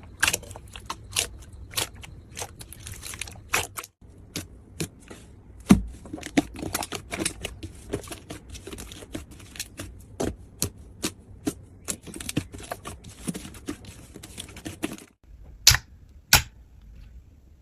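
Slime being squeezed and poked by hand, giving a run of quick, irregular sharp clicks and pops. The clicking breaks off briefly twice, and two louder pops come near the end.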